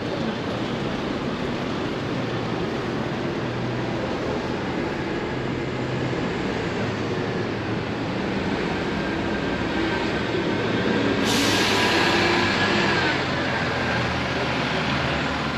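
A bus engine running in street traffic. About two-thirds of the way through comes a sudden air-brake hiss with a high brake squeal, lasting about two seconds.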